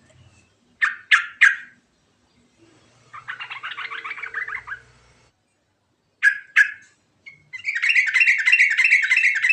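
Yellow-vented bulbul singing: three sharp notes, then a fast chattering trill, two more notes, and near the end a long, rapid rolling phrase.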